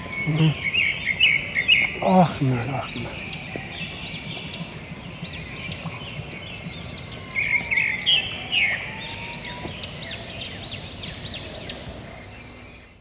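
A steady, high-pitched drone of insects in hillside vegetation, with birds chirping in short bursts near the start and again about eight seconds in, and a brief lower call about two seconds in. The insect drone cuts off just before the end.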